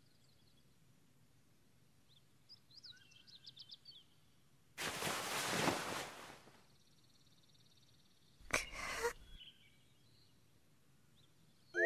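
Quiet room tone with faint bird chirps about three seconds in. Then comes a soft noisy swish lasting about a second and a half, and a shorter one about three seconds later.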